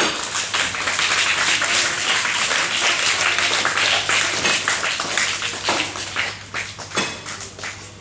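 A crowd clapping, dense at first and thinning to a few scattered claps over the last couple of seconds.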